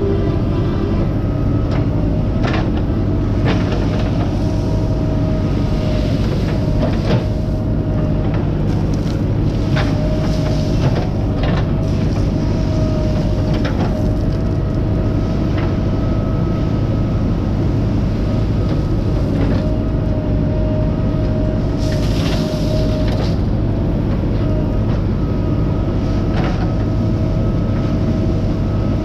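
JCB backhoe loader's diesel engine running steadily under load, with a steady whine over it. Scattered short knocks and clatter come as the backhoe bucket digs into a gravel pile.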